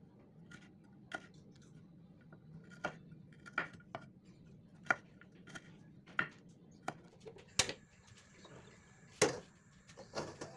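Kitchen knife slicing shallots and garlic on a wooden cutting board: single sharp taps of the blade hitting the board, irregular, roughly one a second. Near the end comes a louder knock, with a faint steady high tone setting in behind it.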